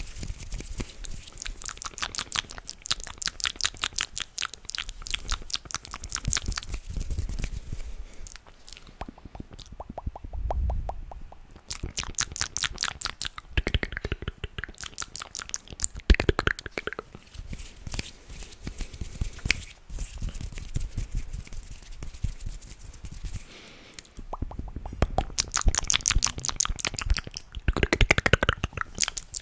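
Close-miked ASMR mouth and hand sounds: fast runs of wet clicks and crackles with occasional pops, broken by a few short quieter pauses.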